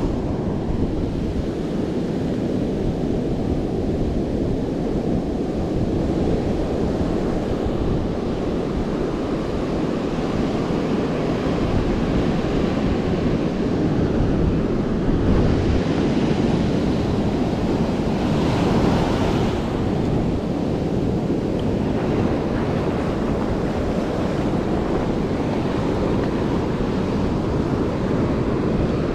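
Ocean surf breaking and washing up a sandy beach, with wind buffeting the microphone. The wash swells briefly twice around the middle.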